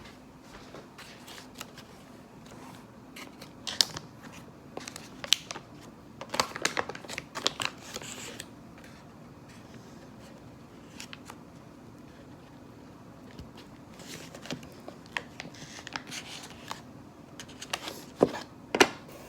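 Scattered clicks, taps and rustling of small objects being handled, with the busiest stretches about four to eight seconds in and two sharp knocks near the end.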